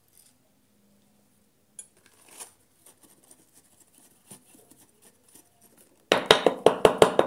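Uncooked glutinous rice spooned from a glass bowl into a banana-leaf-lined bamboo tube, faint scraping and rustling, then about six seconds in a fast run of about nine sharp knocks as the filled bamboo tube is tapped down to pack the rice.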